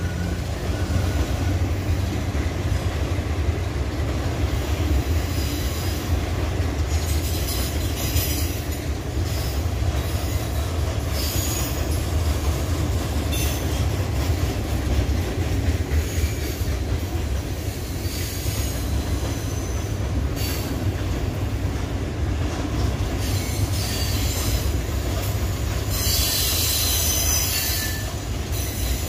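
Loaded rail train rolling past with a steady low rumble, its wheels squealing several times, longest near the end.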